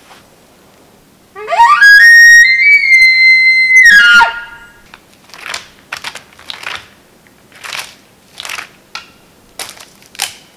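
Elk bugle call blown by a hunter: a loud call of about three seconds that climbs from a low note into a high, held whistle, then drops off abruptly. Then footsteps crunching through forest undergrowth, about one a second.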